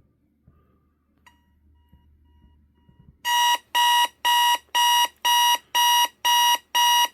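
Electronic alarm clock going off: a faint intermittent tone about a second in, then from about three seconds in a loud, steady-pitched beep repeating about twice a second. It is a fixed alarm sound with no volume setting.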